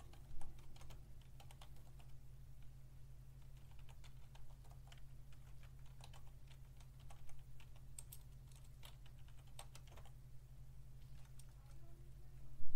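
Typing on a computer keyboard: irregular key clicks as a command is keyed in, with one much louder knock near the end, over a steady low hum.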